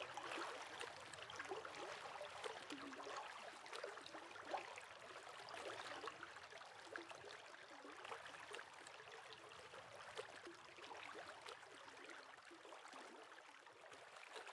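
Faint running water, a stream babbling and trickling with small irregular splashes, slowly fading out.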